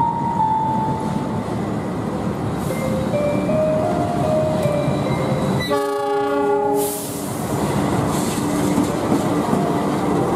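Diesel locomotive of an approaching passenger train sounding its horn once for about a second, midway through. Around the horn, the steady rumble of the locomotive and carriages passing close by, with wheel clatter on the rails.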